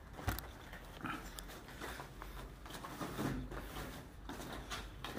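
Footsteps crunching and scuffing over broken concrete rubble, an uneven run of short gritty steps.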